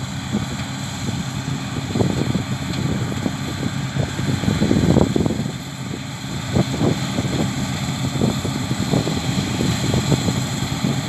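Steady engine drone of a combine harvester at work in the field, with irregular low rumbles. It swells a little about four to five seconds in, then eases.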